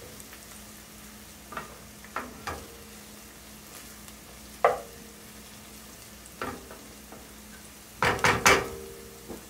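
Wooden spoon stirring chopped onions frying in a metal sauté pan, over a faint steady sizzle. The spoon knocks against the pan every second or two, and each knock rings briefly. Near the end comes a quick cluster of louder taps. The onions are being browned until golden.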